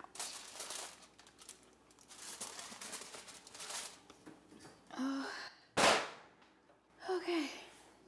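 Aluminium foil crinkling as a foil-wrapped tray of food is handled and slid into an oven, then the oven door shut with one sharp clunk about six seconds in. Two short sighing vocal sounds come just before and after the clunk.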